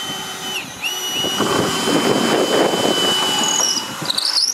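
Cordless drill with a long bit boring a hole through a cedar bench support: a steady high motor whine that dips in pitch just under a second in and climbs straight back. The bit grinds through the wood in the middle of the run, then the whine stops near the end.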